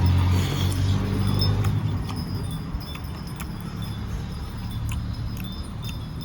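Close-up eating sounds: chewing and mouth noises with scattered sharp clicks and light clinks, like utensils on a plate. A low hum over the first two seconds, then fading.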